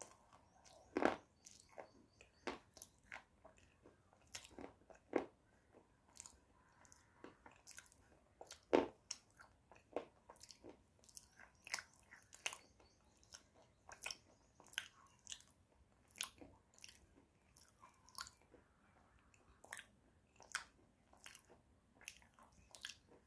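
Close-miked biting and chewing of a thick, hard white clay (slate) bar: a series of sharp, crisp crunches about once or twice a second, the loudest about a second in and about nine seconds in.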